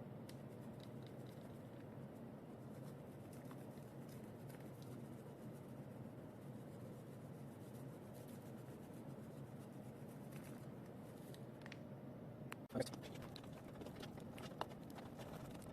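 Faint kitchen handling sounds: light scraping and small clicks over a steady low hum, with one sharp knock about three-quarters of the way through, as spice is added to a pan of cream sauce.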